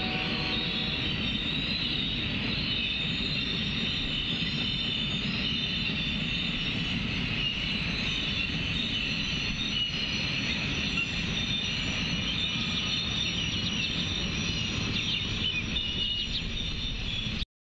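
Bi-level Amtrak Superliner passenger cars rolling past on the rails: a steady rumble of wheels with a constant high-pitched ring above it.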